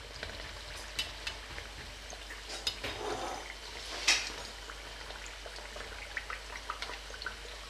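Samosas deep-frying in hot oil in a karahi: a steady sizzle full of small crackles and pops. A metal slotted spoon turning them gives a few sharper clicks against the pan, the loudest about four seconds in.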